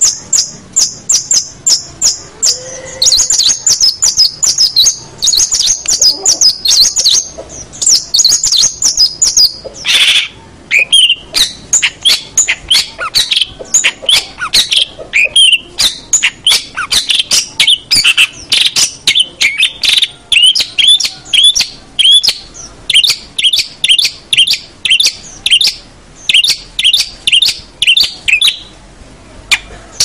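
Long-tailed shrike (cendet) singing: a fast run of high, chattering notes, which drops lower about ten seconds in into a long string of short, sharp chirps repeated several times a second.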